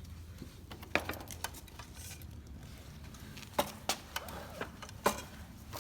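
Scattered clicks and knocks from a miter saw being handled and adjusted by hand, with sharper knocks about a second in, near the middle and near the end; the saw's motor is not running.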